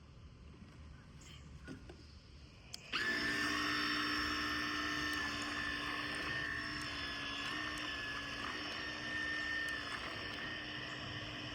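Small electric motor of a toy RC boat starting up about three seconds in and then running with a steady high-pitched whine, its pitch shifting slightly now and then.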